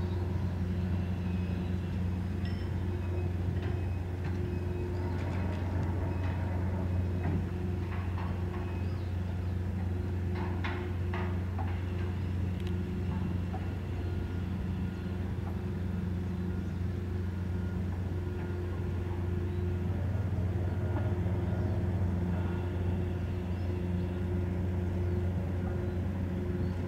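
Moored ferry's diesel machinery running with a steady low hum, several even tones stacked over one another. A few short metallic clicks and rattles come about a third of the way in.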